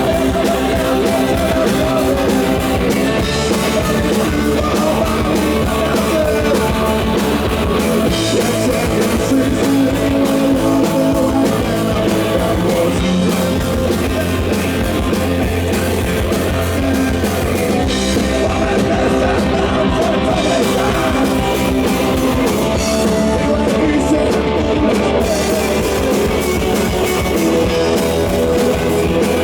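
Punk rock band playing live: electric guitars, bass and drum kit, with singing over them.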